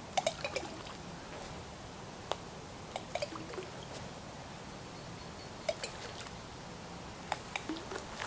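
Small water drips and plops in scattered little clusters a few seconds apart, over a faint steady background.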